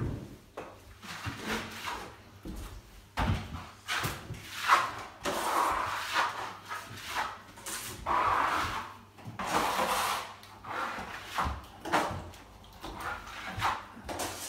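Plastering trowels spreading Gypsum Multi-finish plaster onto a wall for the first coat: repeated scraping strokes, each about a second long, with a few sharp knocks between them.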